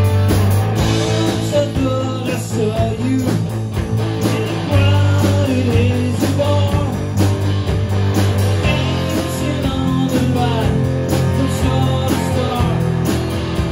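A rock band playing live: electric guitar with bending notes over sustained bass notes and a steady drum beat.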